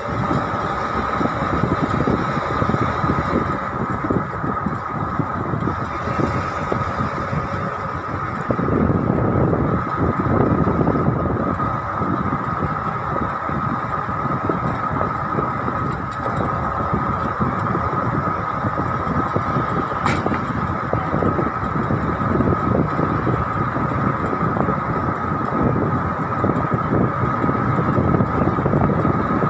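A road vehicle driving at a steady pace: continuous engine and tyre noise with a steady whine running through it, and one short click about twenty seconds in.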